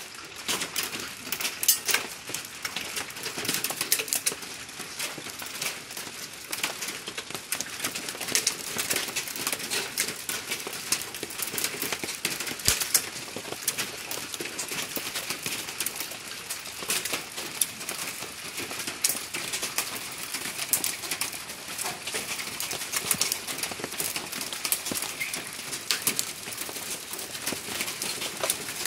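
Hail falling steadily: a dense, continuous patter of small ice pellets striking the ground and nearby surfaces, with many sharp ticks.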